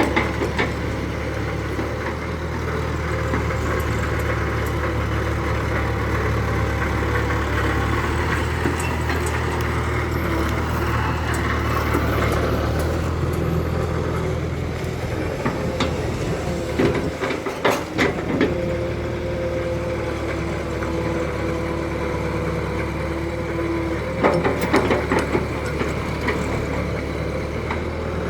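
Radio-controlled model excavator working, with a steady engine-like hum and a whine that shifts pitch as it moves. Short clattering knocks come about two-thirds of the way through and again near the end.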